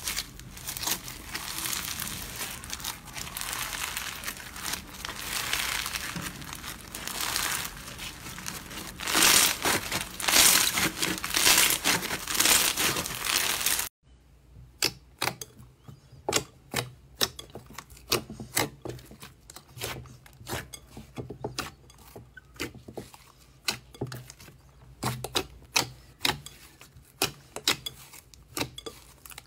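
Foam-bead slime (floam) being stretched and squeezed by hand, making a dense, continuous crackling. About halfway through it switches abruptly to glossy slime pressed and poked in a bowl, which gives quieter, separate sharp pops and clicks several times a second as trapped air escapes.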